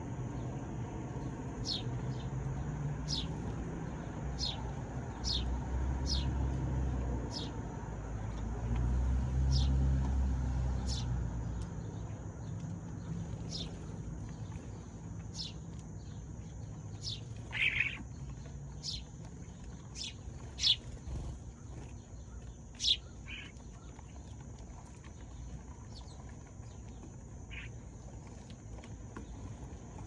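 Sparrow chirping: short, high, falling chirps repeated roughly once a second, with a few louder ones past the middle. A steady high hiss runs beneath, and a low rumble fills the first dozen seconds, then fades.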